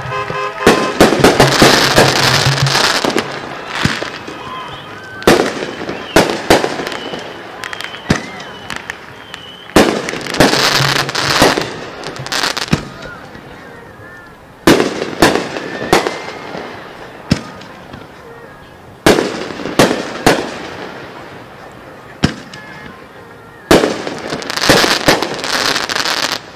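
Aerial fireworks shells bursting, a sharp bang every second or two. Three spells of dense crackling come near the start, about ten seconds in, and near the end.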